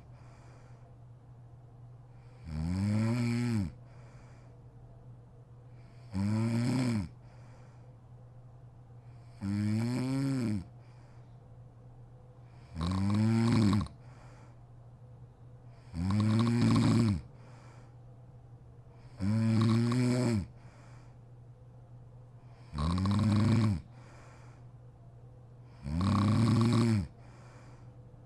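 A sleeping woman snoring: eight snores at a steady pace, about one every three and a half seconds. Each lasts about a second, with a pitch that rises and then falls.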